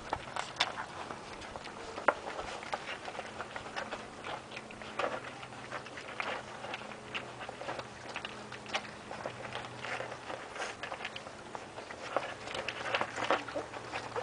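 A litter of Sarplaninac puppies eating from a bowl: a dense, irregular run of quick wet smacking and lapping clicks, with an occasional sharper knock.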